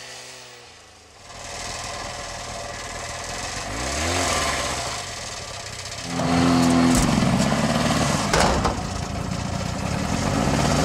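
Snowmobile engine running, with a brief rising rev about four seconds in; a louder engine sound takes over about six seconds in and runs steadily.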